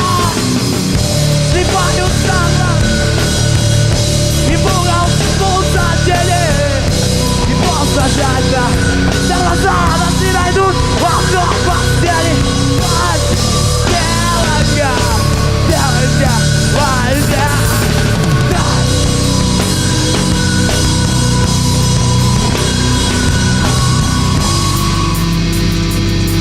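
Live heavy rock band playing a loud instrumental passage: distorted guitars, bass and drum kit, with a lead line whose notes bend up and down through the middle.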